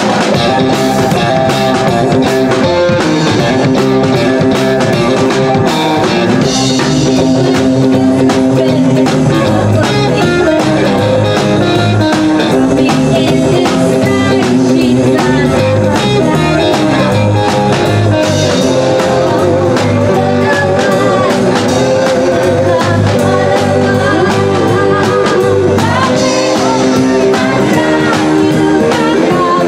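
Rock'n'roll band playing live, with electric guitar and a woman singing.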